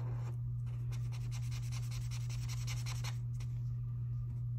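A marker scribbling quickly back and forth on paper, colouring in a shape. The scribbling stops about three seconds in, over a steady low hum.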